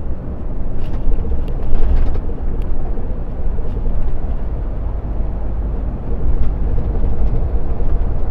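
Heavy truck driving at a steady pace, heard from inside the cab: an even low rumble of engine and road noise with a faint steady hum and a few light ticks.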